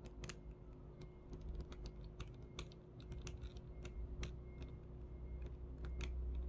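Irregular light clicks and taps of small reel parts and tools being handled while a Shimano Miravel spinning reel is taken apart.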